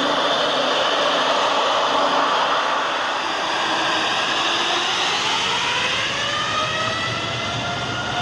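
Boeing 787-8 jetliner's Rolls-Royce Trent 1000 turbofan engines running with a steady rushing noise, then spooling up for takeoff from about halfway through, a whine rising in pitch.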